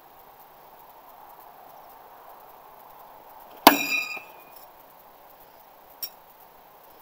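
A thrown steel knife strikes the wooden target board with a sharp clang, the blade ringing briefly after the hit. A small click follows about two seconds later.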